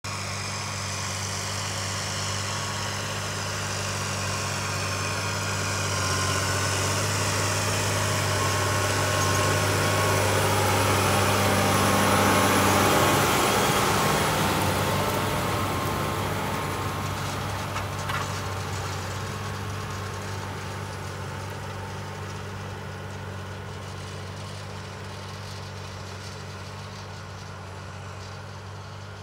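Large tractor's diesel engine running steadily under load as it pulls a Lemken Rubin 10/600KUA disc harrow through stubble. It grows louder to a close pass about halfway through and fades as it moves away. Near the pass, the rush and rattle of the harrow's discs cutting the soil can be heard.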